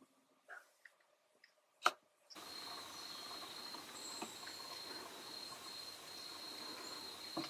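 A few sharp cracking clicks from a glossy black cockatoo's beak working a casuarina cone. After a cut, a steady high insect trill runs over soft outdoor background noise, with only faint clicks of chewing.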